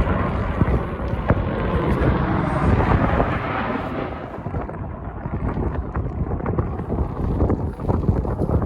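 Wind buffeting the microphone, a loud rumbling noise whose higher hiss thins out about halfway through.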